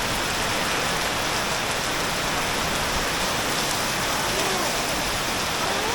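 Heavy tropical downpour pouring down steadily, rain hammering on a swimming pool's water and the surfaces around it.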